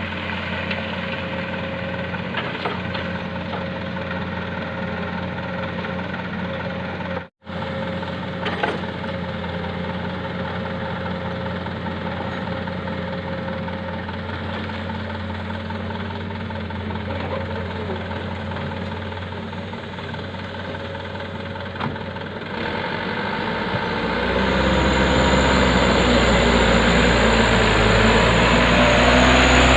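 Diesel engine of heavy equipment at a sand-loading site, running steadily. The sound drops out briefly about seven seconds in. It becomes louder and deeper from about 23 seconds in, as an engine is worked harder.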